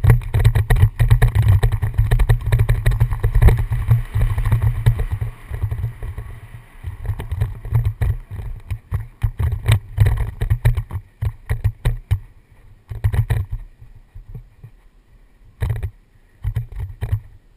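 Wind buffeting a helmet-mounted camera's microphone as a downhill mountain bike rides fast down a rough dirt trail. The low wind rumble comes with many rattles and knocks from the bike over the ground, and it grows weaker and more broken in the last few seconds.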